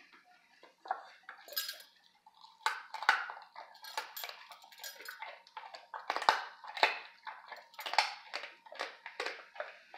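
Labrador nosing and biting at dried raw pork bones in a stainless steel bowl: the hard bones clack and knock against the metal bowl and each other in irregular bursts, several a second, starting about a second in.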